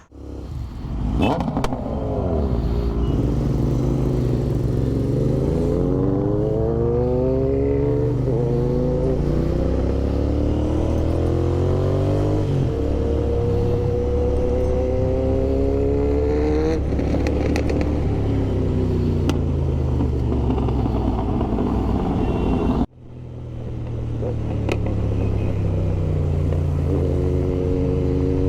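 Kawasaki Z900 with an Austin Racing aftermarket exhaust, pulling away and accelerating through the gears: the engine note rises and drops with each upshift, over wind rumble on the helmet camera's microphone. The sound cuts off suddenly about 23 seconds in and picks up again with the engine climbing once more.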